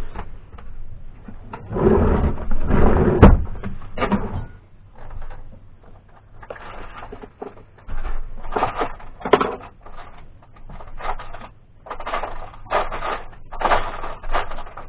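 Irregular knocking, clattering and rustling of things being handled, densest about two to four seconds in, then scattered short knocks.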